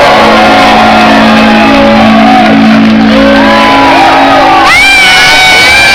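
Live rock band playing very loud, a low chord held under shouting voices; about two-thirds of the way through, high-pitched voices join in.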